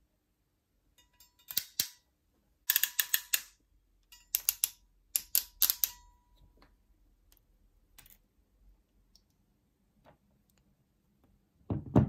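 Platinum Tools EZ-RJPRO HD crimp tool clicking in four bursts of rapid sharp clicks as its handles are squeezed, crimping an EZ-RJ45 connector onto a network cable and trimming off the excess conductors. A dull knock near the end.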